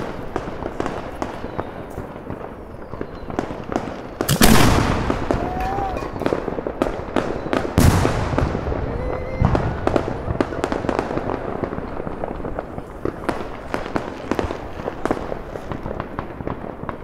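A 130 mm Italian cylinder firework shell is launched from its mortar tube with a loud boom about four seconds in. About three and a half seconds later it bursts overhead with a second loud bang. Scattered firecracker pops go on throughout.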